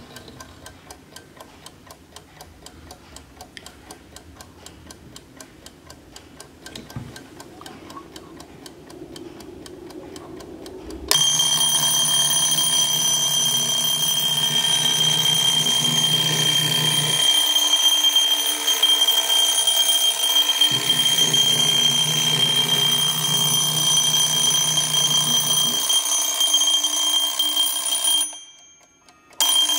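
Bayard Mickey Mouse wind-up mechanical alarm clock ticking quietly and evenly, then about eleven seconds in its alarm goes off in a loud, continuous metallic ring. The ring cuts out for about a second near the end and then starts again.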